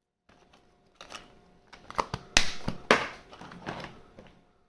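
POG discs and slammers clicking and clattering as they are picked through by hand, a handful of sharp clacks with the loudest about two and a half seconds in.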